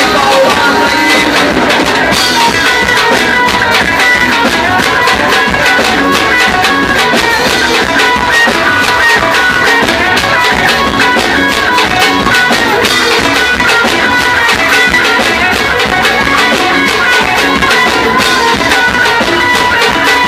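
A live band playing upbeat gospel axé music with a steady, driving beat.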